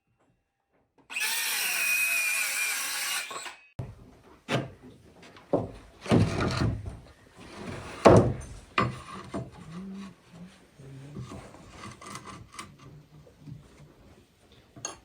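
A power tool runs for about two and a half seconds and stops, followed by irregular knocks and scraping of tools against wood.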